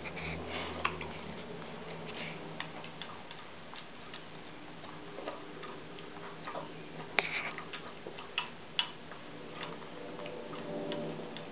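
Dog eating from a stainless steel bowl on a raised stand: irregular clicks of chewing and of food and teeth against the metal bowl, with a few sharper clinks about seven to nine seconds in.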